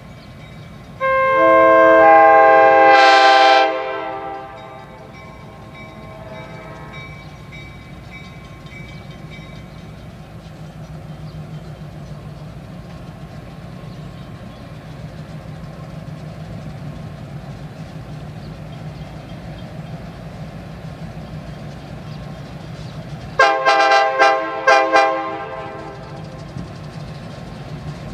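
Wisconsin & Southern locomotive 702's multi-note air horn: one long blast of about three seconds, then the low rumble of the approaching diesel locomotive, and near the end four short toots in quick succession.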